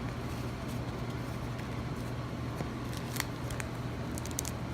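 1998 Fleer Ultra baseball cards being handled and flipped through: a few scattered crisp ticks, then a quick run of them near the end, over a steady low hum.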